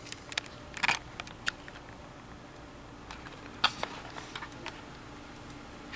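Several scattered clicks and light taps, the clearest about a second in and a little past the middle, over a faint steady hum.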